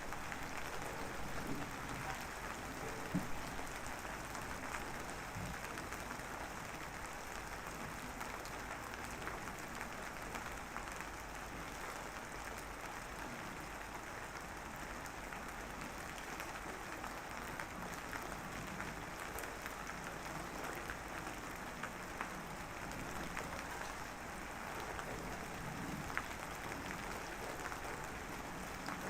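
Steady light drizzle falling, with an even hiss and scattered faint drop ticks.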